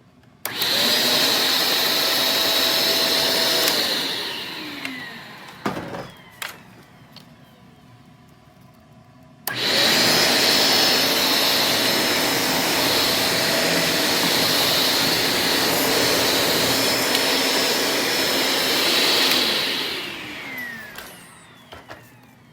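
Vacuum cleaner switched on with a steady whine, run for about three seconds, then switched off so that the whine falls as the motor spins down. A few clicks follow; then it is switched on again, runs for about ten seconds, and spins down again near the end.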